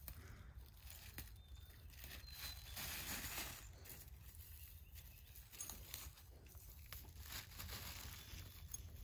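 Faint rustling of dry grass and leaf litter and crinkling of a plastic bag as wild greens are picked by hand and dropped into it, in short irregular bursts.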